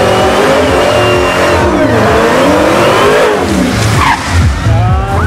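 Dodge Charger Hellcat's supercharged V8 revving hard during a burnout, its pitch rising and falling again and again, over the squeal of spinning rear tyres.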